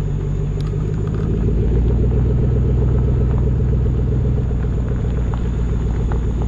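2018 Chevrolet Silverado 1500 pickup with a true dual exhaust running on the move: a steady low engine and exhaust drone with road rumble, heard from low down beside the wheel well. The drone deepens and grows a little louder about a second and a half in.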